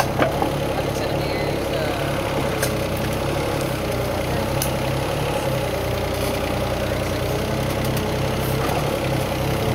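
Diesel engine of a Volvo backhoe idling steadily.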